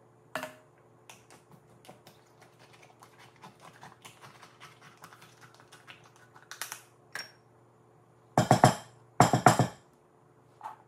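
Kitchen handling sounds of glass canning jars and utensils: scattered light clicks and taps, then two loud bursts of rapid clattering, about a second apart, near the end.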